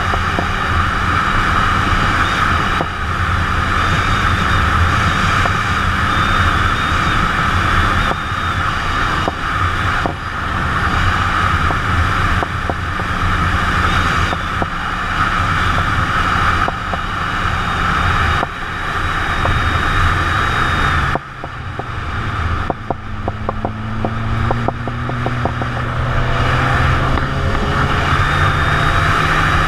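Motorcycle engine running at road speed with heavy wind rush on the helmet-mounted microphone. About two-thirds of the way through the throttle closes and the level drops, then the engine pulls again, its pitch rising as the bike speeds up.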